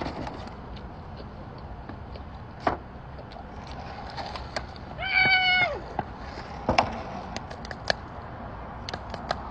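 A single high-pitched, drawn-out vocal call about five seconds in, holding one pitch and then dropping off. A few short sharp clicks are heard over a low background rumble.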